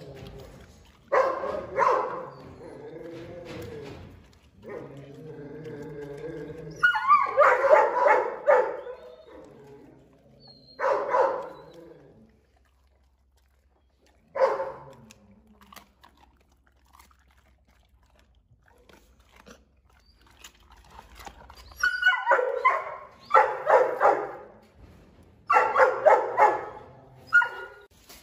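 Dog barking in loud bursts with long pauses, the barks clustering again near the end, and a wavering whine between the first barks.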